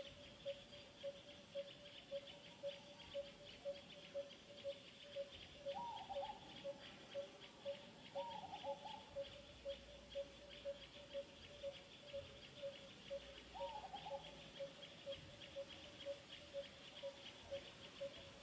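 Outdoor animal ambience: a bird's single note repeated steadily about twice a second over a continuous high insect trill, with three short falling calls about six, eight and fourteen seconds in.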